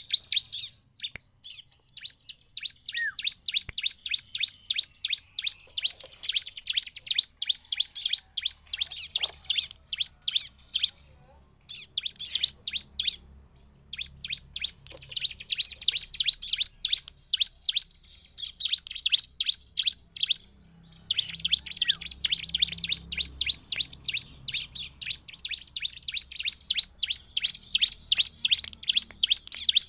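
Bar-winged prinia (ciblek) singing: long runs of rapid, sharp, high chirps repeated many times a second, broken by several short pauses.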